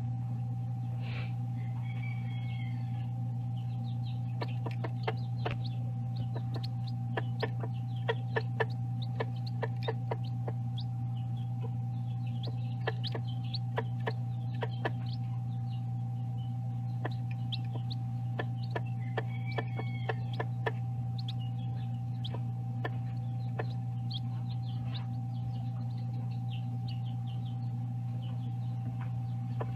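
A broody hen with newly hatched chicks: many quick clicks of chicks pecking feed from a glass dish, and a few short chicken calls about a second in and again about two-thirds of the way through. All of it sits over a steady low electrical hum.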